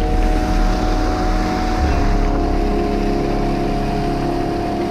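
Background music of held, sustained chords over a steady rush of stream water.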